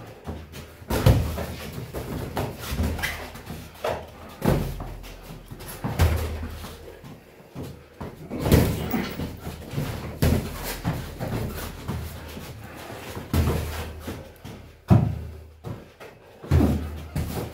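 Boxing gloves thudding on gloves and headgear during heavyweight sparring: irregular heavy blows, one every second or two, with a few quick combinations.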